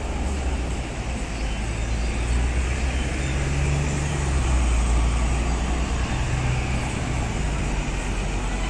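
Street traffic noise, steady, with a double-decker bus engine running close by and loudest around the middle.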